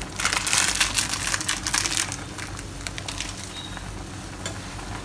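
Chicken broth with mee sua noodles boiling hard in a small non-stick pan, giving a dense crackling bubble, louder for the first two seconds or so. Tongs stir the noodles in the pan.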